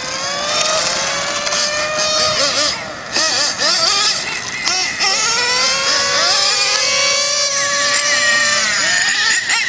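Small nitro engine of a Traxxas 4-Tec RC car running at high revs, its pitch climbing as the car accelerates down the strip. The pitch rises for about two seconds, wavers and dips briefly about three seconds in, climbs again for about five seconds, then falls away near the end.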